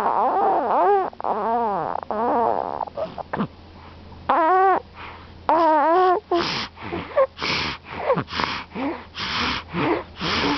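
Snoring: squeaky, whistling tones that rise and fall through the first half, then rough, noisy snores about once a second.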